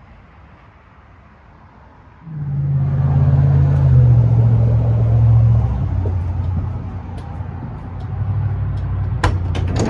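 A vehicle engine comes in loud about two seconds in and keeps running steadily, its pitch shifting a little a few times. There are a few sharp clicks near the end.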